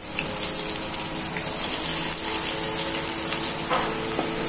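Green chillies frying in hot oil in an aluminium kadai, a steady sizzle.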